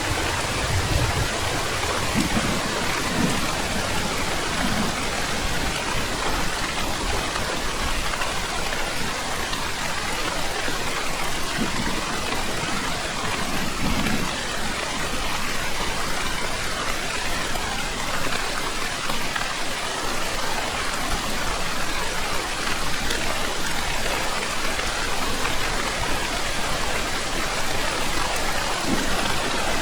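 Steady heavy rainfall, an even hiss of drops, with a few faint low rumbles of distant thunder now and then.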